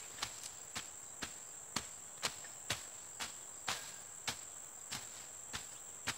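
Sharp chopping strikes, about two a second and uneven in strength, from a blade cutting through undergrowth during weed clearing, over a steady high-pitched drone of insects.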